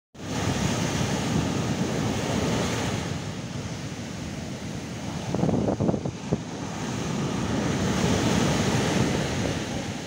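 Atlantic surf breaking and washing up over a sandy beach, swelling and easing off and swelling again, with wind buffeting the microphone in a few short gusts about halfway through.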